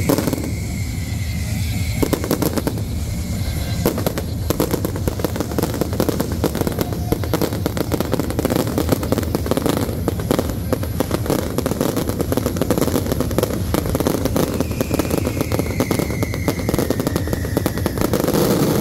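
Aerial fireworks bursting overhead: a dense, rapid rattle of crackles and bangs, many per second, over a low rumble.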